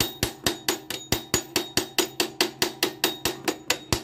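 Sharp metallic clicks from a wrench being worked on the rear drum brake's cam arm nut, evenly spaced at about four to five a second.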